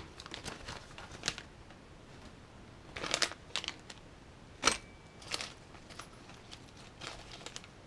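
Thin plastic parts bag crinkling and small plastic gears and hardware for an RC transmission clicking as they are tipped out onto a paper manual, in a few short separate bursts, with one sharper click a little past the middle.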